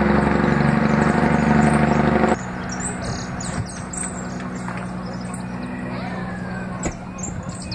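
Truck engine running steadily at an even pitch, cutting off suddenly after about two seconds. Birds chirping follow over a quiet outdoor background, with one sharp click near the end.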